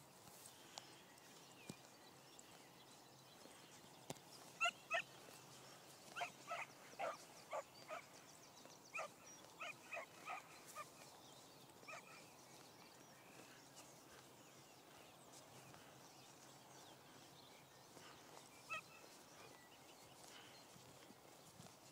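Beagle puppy yelping on the trail of a deer: a run of about a dozen short, high yelps, then a single one near the end.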